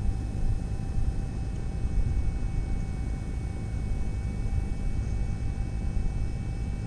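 Steady low rumbling background noise, with faint steady hum tones above it and no distinct events.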